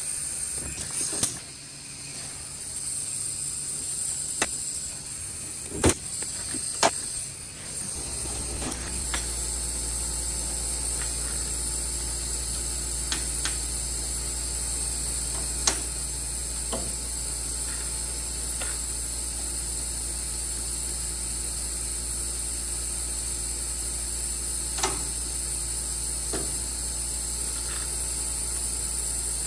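Pneumatic rivet puller setting pulled rivets along the aluminium flap's leading edge: a few sharp snaps at irregular intervals, the loudest about six and seven seconds in, over a steady hiss. A low steady hum comes in about eight seconds in.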